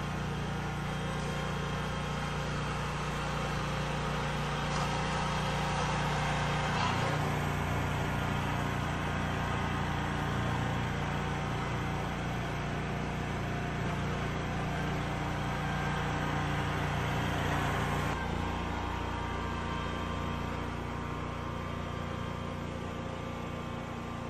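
Steady engine drone of a small ride-on asphalt roller compacting a hot asphalt patch, the sound shifting slightly about seven seconds in and again near eighteen seconds.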